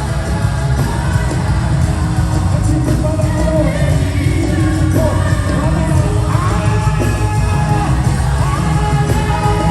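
Live worship band music with singing and a heavy steady bass, with some shouting from the congregation.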